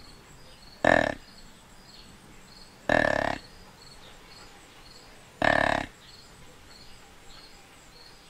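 Deer grunt call blown three times, short grunts about two to two and a half seconds apart, the first the shortest, imitating a whitetail buck's grunt to lure a buck in. Insects chirp faintly and steadily underneath.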